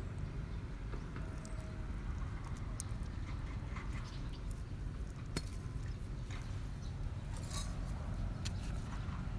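Scattered small clicks and taps of snail shells and hollow clay bricks being handled, over a steady low rumble.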